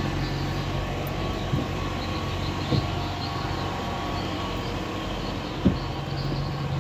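Steady machine hum with a few short knocks: one at about a second and a half, one near three seconds, and a louder one a little before six seconds.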